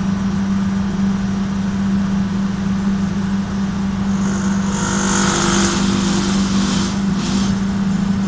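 Main electric motor running with a steady low hum. For about three seconds past the middle, a higher rushing noise joins it and then stops; this is the motor's abnormal noise.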